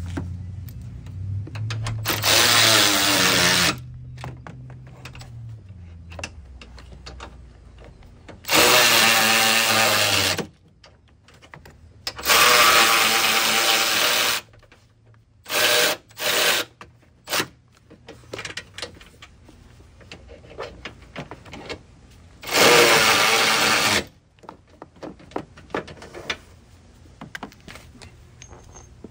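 Cordless ratchet running on the upper strut mount nuts of a 2014 Ford Explorer's front strut, in four runs of about two seconds each with three short blips between the middle two, and light clicks of handling in between.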